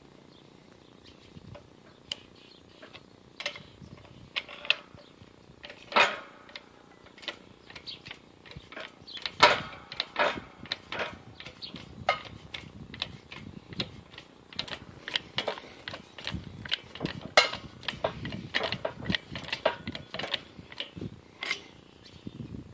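Irregular metallic clicks and clanks from a 20-ton hydraulic shop press and its bottle jack being handled, with a few sharper knocks standing out among lighter ticks.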